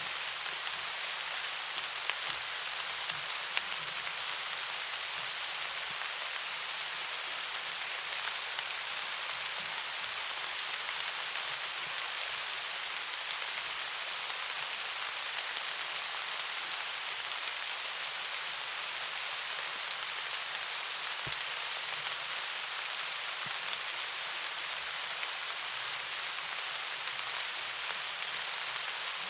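Steady, even rain falling, a dense hiss with a few faint ticks scattered through it.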